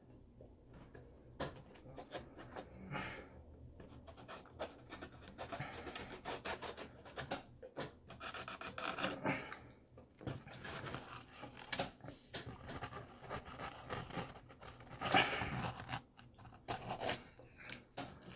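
Close-up eating sounds: chewing, lip smacking and finger licking, with a fork scraping and tapping in a foam takeout container. Many short clicks and wet mouth noises, with a louder cluster a little past the middle.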